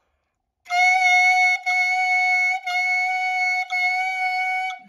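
A clarinet mouthpiece with its reed, played on its own off the instrument: four tongued notes on one steady high pitch, each about a second long. Each note is started by the tongue touching the tip of the reed, which leaves only a very short break between notes.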